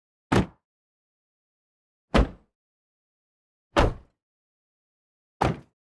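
Car door closing shut, heard from outside the car, four separate times: each a single solid thud that dies away quickly.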